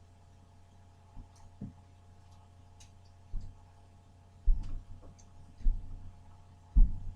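Dull low thumps about once a second over a steady low hum, the last one near the end the loudest.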